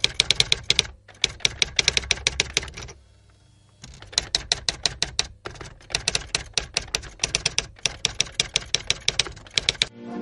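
Typewriter keystroke sound effect: rapid clacking keystrokes in runs, broken by short pauses and a longer pause about three seconds in, timed to on-screen text being typed out.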